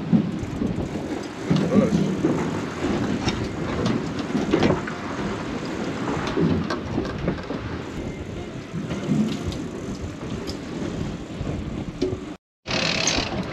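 Wind buffeting the microphone and water rushing along the hull of a small fishing boat, with its outboard motor running, in uneven gusts. Near the end the sound cuts out abruptly for a moment, then a brighter rattling noise begins.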